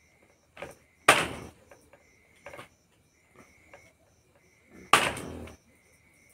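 Heavy chopping knife striking meat on a chopping block: two hard chops about four seconds apart, with a few lighter knocks between them.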